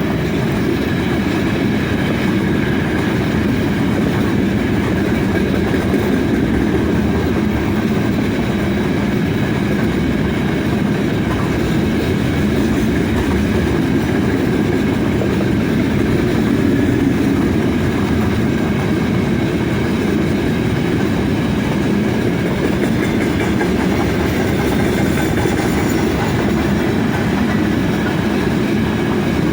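Long double-length freight train's wagons rolling steadily past, their wheels running on the rails with an even, continuous rumble.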